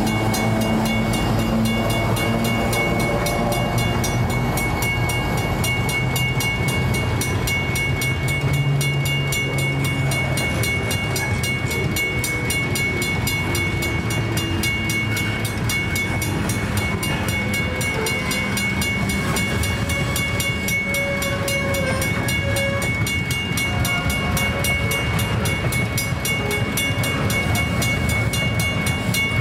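Aurizon coal train passing: the trailing diesel locomotive's engine runs for the first ten seconds or so, then the coal hopper wagons roll past on the rails. A level-crossing bell rings steadily throughout.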